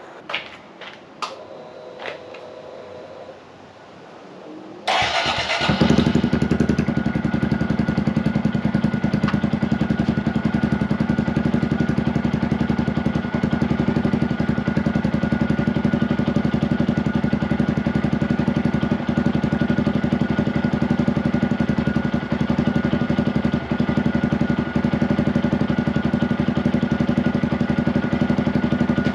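2023 Honda Grom's 124 cc single-cylinder four-stroke engine, fitted with a Yoshimura RS-9T full exhaust with the baffle still in, starting for the first time about five seconds in and settling into a steady idle. A few clicks come before it starts.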